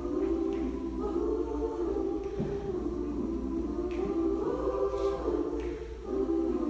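Women's choir singing held chords in several parts, apparently unaccompanied, with brief breaks between phrases.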